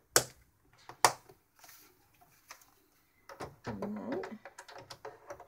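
Plastic cutting and embossing mats handled on a tabletop: two sharp taps about a second apart, then a run of light clicks and scraping as the mat stack is lifted and slid toward the cutter.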